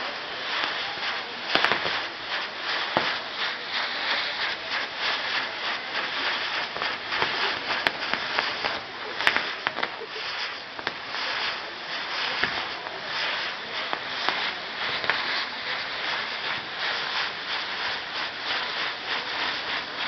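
Spinning firework wheel on a castillo fireworks tower burning: a dense, steady crackling and hissing of sparks, with a couple of sharper pops.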